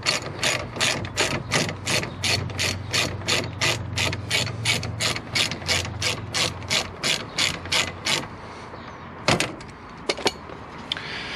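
Ratchet wrench with a 7 mm hex bit clicking in quick even strokes, about three a second, as it winds out a rear brake caliper slide bolt. The clicking stops about eight seconds in, followed by two separate knocks.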